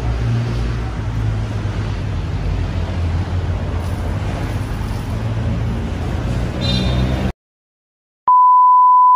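Steady low rumble of street traffic that cuts off abruptly about seven seconds in. After a second of silence, a loud, steady, single-pitched electronic beep sounds for about a second.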